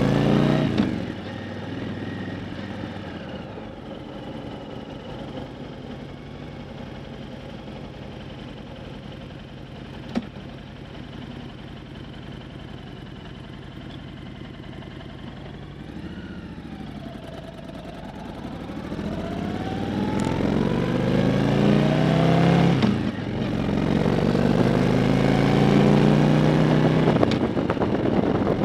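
2012 Honda Fury's V-twin engine and exhaust running at a lower steady note through the first half, then climbing in pitch and loudness as it accelerates from about two-thirds in. Near the end the note dips briefly, then climbs again.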